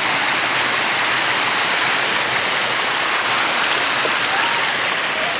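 Steady rush of water pouring down a waterfall, an even, unbroken hiss.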